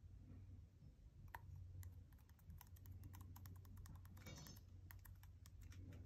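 Faint, rapid fingertip taps on a Mitsubishi MHK2 thermostat's touchscreen, many in quick succession, as the clock setting is stepped forward. A short rustle about four seconds in.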